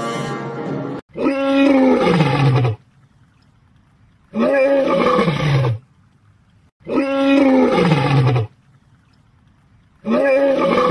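A male lion roaring four times, each call about a second and a half long and falling in pitch, with short pauses between them. Music plays for the first second before the roars begin.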